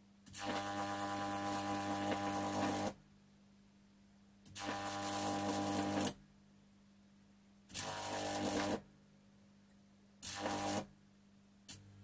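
High-voltage AC arcs from a 1.9 kVA microwave oven transformer at 2370 V, buzzing and hissing as the electrodes are touched and drawn apart: five bursts, each shorter than the last. A low steady hum sounds between them.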